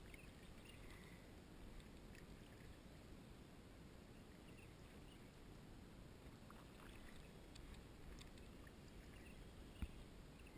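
Faint sounds of a plastic kayak being paddled on still water, with one sharp knock near the end.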